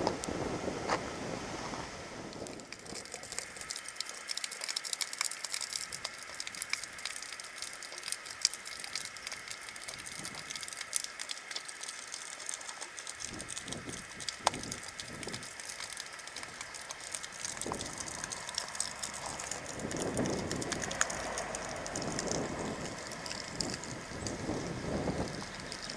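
Water trickling and splashing from a small stone spring onto wooden boards, a steady crackling hiss. Near the end a car passes on the road, swelling and fading.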